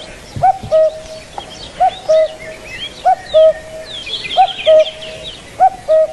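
Birdsong: one bird repeats a low two-note call about five times, roughly every second and a quarter. Other birds chirp and trill higher up in the background.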